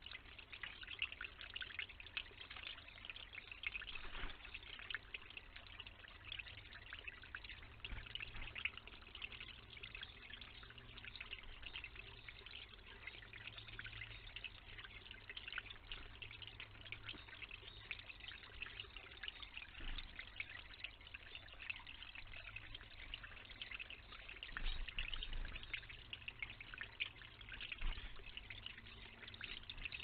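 Steady trickle of water running from a small stone fountain into a pool, with a few soft knocks.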